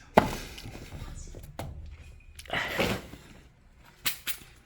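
Handling noises at a coin-operated washing machine: a sharp knock just after the start, a rustling scrape a little past halfway, and two short clicks near the end.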